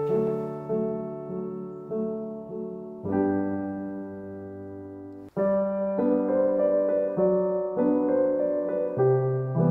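Background piano music, soft held notes changing about once a second, cutting out for an instant about five seconds in before it carries on.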